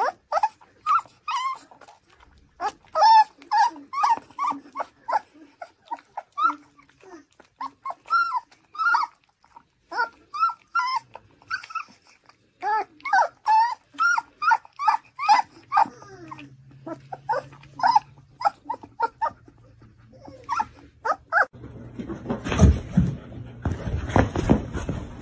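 Puppy making a long string of short, high whiny squeaks and grumbles, several a second, as it eats from its food dish. About 21 seconds in the squeaks stop and a loud rough rushing noise with low thumps takes over.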